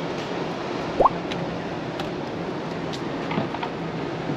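Steady running of an idling bus, with a short rising squeak about a second in and a few faint clicks near the end.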